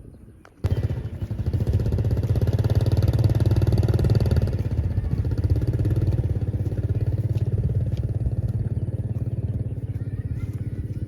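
A motor vehicle engine running steadily at close range. It starts abruptly about half a second in and slowly grows weaker toward the end.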